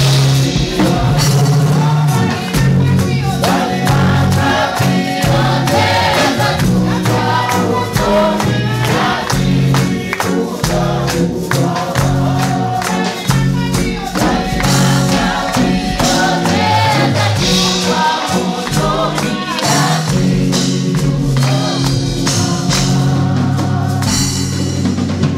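Live gospel praise music: a lead singer on a microphone with a choir singing along, over a band playing a steady beat and a bass line, with tambourine.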